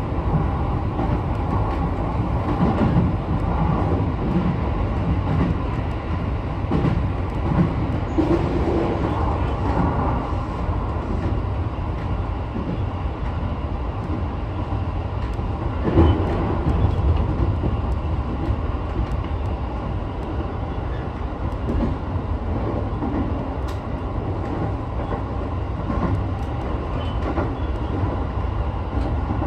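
Sotetsu 12000 series electric train running steadily at speed, heard from inside the front car: a constant rumble of wheels on rail, with one sharp knock about halfway through.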